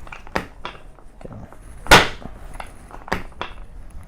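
Drop piece of a chiropractic speeder board snapping down under a foot-and-ankle adjustment, giving sharp clacks: a loud one about two seconds in, and lighter ones near the start and about three seconds in.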